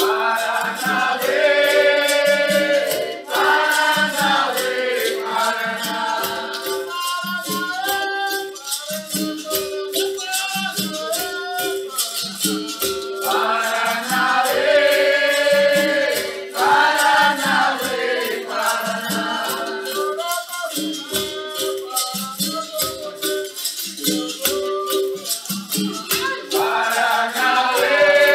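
Capoeira music: berimbaus keep a steady repeating rhythm with caxixi rattles shaking, under singing voices.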